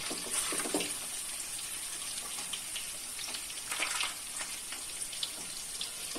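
Paneer cubes frying in hot mustard oil in a kadhai, a steady sizzling hiss. There are a couple of brief louder moments, about half a second in and about four seconds in, as a metal slotted spoon is worked through the oil to lift the cubes.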